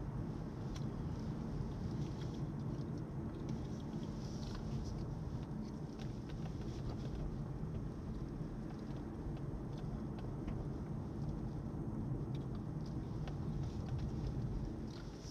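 Steady low rumble of a car running, heard from inside the cabin, with small clicks and rattles scattered through it.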